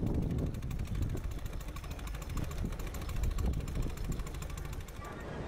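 Miniature steam traction engine running as it tows a laden trailer. Its beat is a fast, even ticking over a low rumble.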